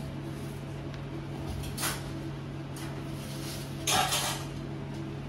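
Steel door of a commercial deck oven swung shut with a short metallic scrape and rush about four seconds in, after a softer scrape of a bread tin sliding onto the oven hearth, over a steady low hum.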